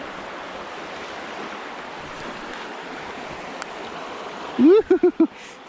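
Steady rush of flowing water. Near the end a person whoops "woo-hoo-hoo", a short rising call and then three quick notes.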